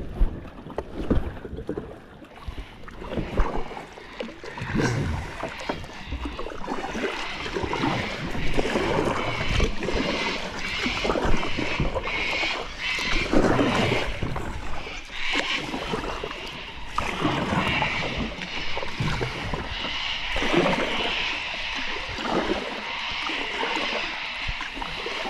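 Kayak on a river: paddle strokes and water splashing around the hull, irregular and ongoing.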